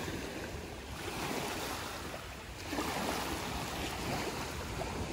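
Small lake waves washing and lapping in the shallows, rising and falling in gentle surges, with wind buffeting the microphone.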